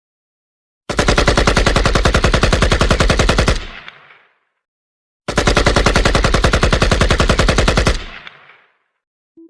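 A notification tone of rapid automatic gunfire, played twice: two bursts of fast, evenly spaced shots, each lasting about two and a half seconds and fading out in an echoing tail.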